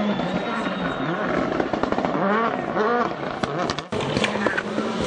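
Rally car engine revving hard, its pitch climbing and dropping several times in quick succession, with a sudden break about four seconds in.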